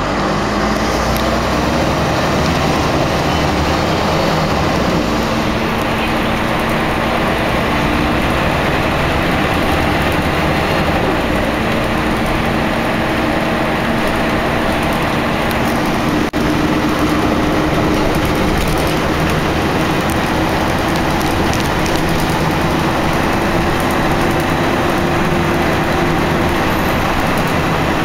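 Interior sound of a Scania L113CRL single-decker bus on the move: its rear-mounted 11-litre six-cylinder diesel engine running under way over a steady rush of road and tyre noise, the engine note stepping in pitch several times as the bus goes through its gears.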